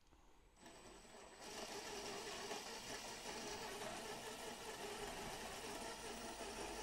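Electric drive motor, gearbox and four-wheel-drive train of a 1/6 scale Armortek Series 1 Land Rover model running with the wheels spinning in the air. It is a faint, steady machine whir that starts about a second and a half in.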